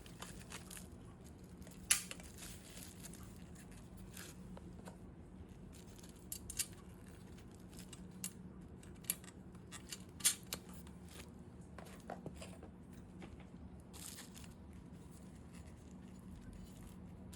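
Scattered light clicks and taps, a few sharper ones about 2 and 10 seconds in, over a faint steady hum.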